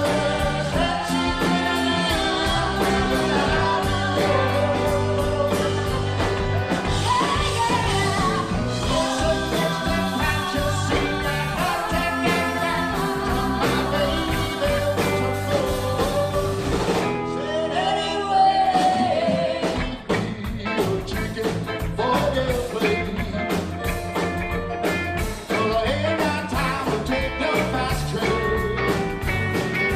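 Live rock band playing, with vocals over electric bass, keyboard, drums and cymbals. A bit past the middle the bass and drums drop out briefly under a single sliding melody line, then the full band comes back in.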